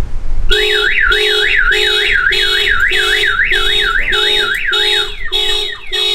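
Viper car alarm siren set off by its shock sensor after the car is hit. It starts about half a second in with a tone warbling up and down about four times a second over a lower beep about twice a second, then switches to a different pattern of falling chirps about five seconds in.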